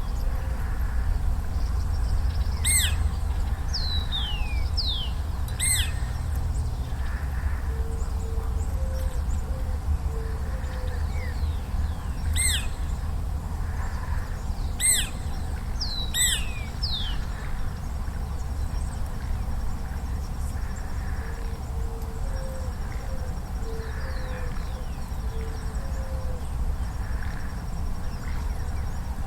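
Birds calling over a steady low rumble: sharp high call notes about five times, some falling whistled notes, and soft low notes repeated in short series.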